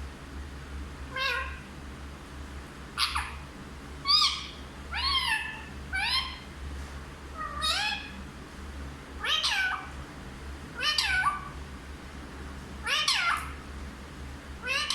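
A run of about ten short meow-like calls, roughly one a second, each rising and then falling in pitch.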